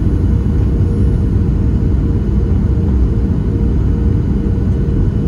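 Steady low rumble inside the cabin of a Boeing 737-700 descending on approach, heard from a seat over the wing: airflow and its CFM56-7B turbofan engines, with a faint steady hum.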